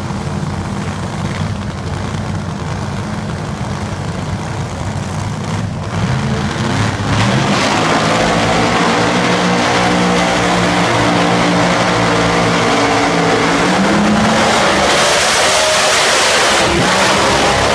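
Alcohol funny car engine running loud: it idles, revs up sharply about seven seconds in, and holds a loud high-rpm drone. About fifteen seconds in, a loud rise in hiss covers the engine.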